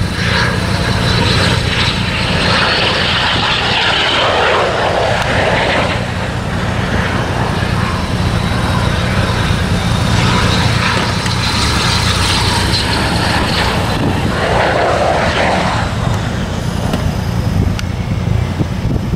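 BAE Hawk T1 jet trainer on approach with its landing gear down, its Adour turbofan engine giving a steady high whine over a broad jet rumble.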